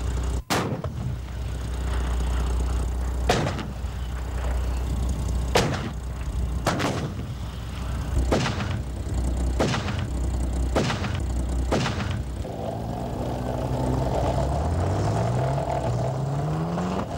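A Scimitar armoured vehicle's 30 mm RARDEN cannon firing single shots about every one to two seconds at range targets, over the vehicle's steady engine rumble. Over the last few seconds the shots stop and the engine note rises steadily as the vehicle drives on.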